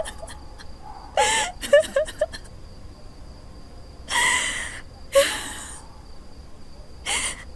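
An elderly woman crying: a few short whimpering sounds, then three breathy, gasping sobs a second or two apart.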